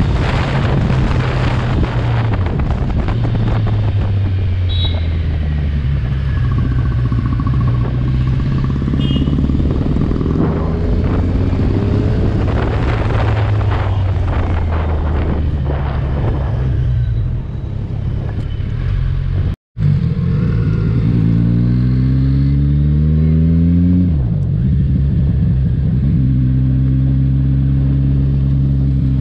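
Kawasaki Ninja 1000's inline-four engine running at steady revs while riding, with a rushing noise over it. About 20 s in the sound cuts out for a moment. Then the engine rises in pitch as it accelerates and settles steady again.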